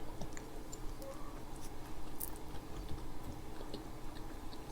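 A person chewing sushi with the mouth close to the microphone, making soft, scattered small wet clicks.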